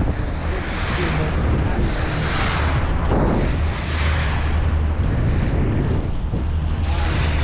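A boat running offshore: a steady low engine drone under wind buffeting the microphone and water rushing along the hull, swelling and easing every second or two.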